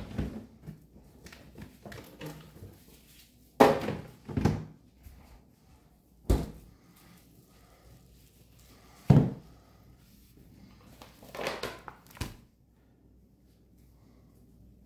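Scattered knocks and thuds of hands-on kitchen work, about seven in all with quiet between them, two of them much louder than the rest.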